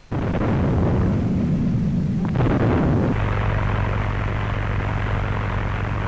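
Battleship gunfire heard as a heavy, continuous rumble for about three seconds. It then cuts abruptly to the steady low drone of a biplane's radial engine, all on an old newsreel soundtrack.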